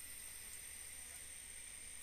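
Faint, steady forest ambience: an even hiss with a constant high-pitched insect drone.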